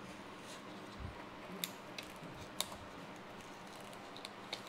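Polariser film being peeled off an LED TV panel with a blade tool: a few sharp clicks and small crackles, the loudest about halfway through, with a soft low thump about a second in.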